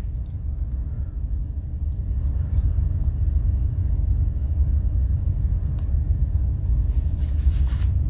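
Steady low background rumble with no distinct events, and a faint click or two near the end.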